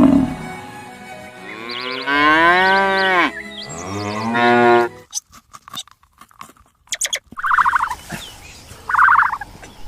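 Cow mooing: two long calls that rise and fall in pitch, followed by a run of sharp clicks and two short, higher calls near the end.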